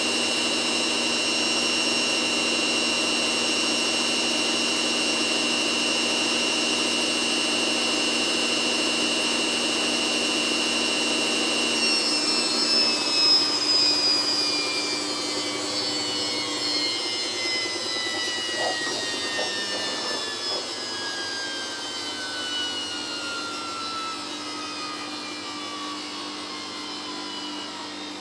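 Samsung WF8804RPA washing machine drum spinning at high speed with a steady motor whine. About twelve seconds in, the drive lets go and the drum coasts down, its whine falling steadily in pitch and fading, with a few light knocks near the middle.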